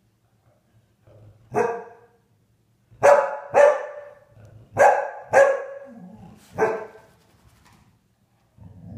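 A dog barking: six short, sharp barks, two of them in quick pairs. Near the end a lower, drawn-out dog vocalisation begins.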